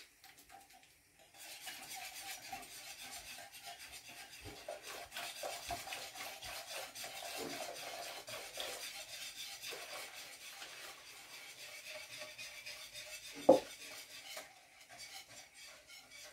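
Wire whisk stirring fast in a glass bowl of liquid custard base, a steady rapid scraping and rattling against the glass. It starts about a second in and stops near the end, with one sharp glassy clink shortly before it stops.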